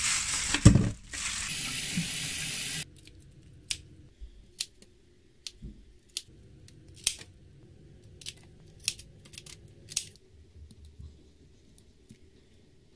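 Kitchen scissors snipping through raw shrimp shells, about a dozen short, sharp snips at irregular intervals. The snips are preceded by a loud rush of noise that stops abruptly about three seconds in.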